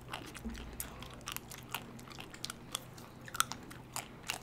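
Close-up mouth sounds of people eating ice cream bars on sticks: irregular wet smacks, sucking and small bites, with a louder click about three and a half seconds in and another near the end.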